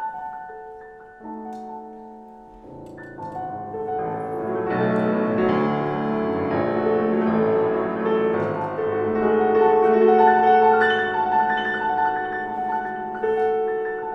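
Solo grand piano playing a classical piece: it starts quietly with a few held notes, then grows fuller and louder from about three seconds in.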